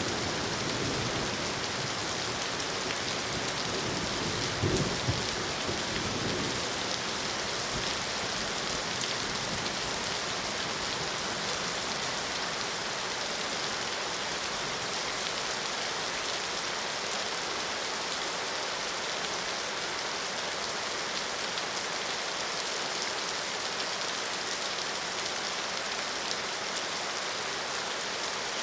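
Rain falling steadily, an even hiss, with a brief low rumble about five seconds in.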